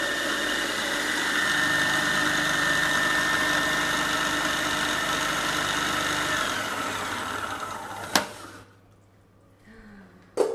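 Magimix Cook Expert food processor running steadily with a high whine, chopping onion, garlic, spices and coriander, then spinning down about seven seconds in. A sharp click follows about a second later, and a knock comes near the end.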